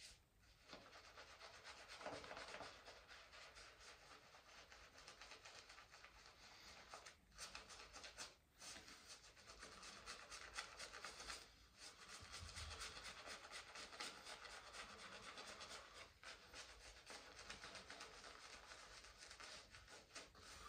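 Faint, continuous scratchy rubbing of an OUMO ST-2 shaving brush working lather, its bristles brushing over the face, with a few short pauses.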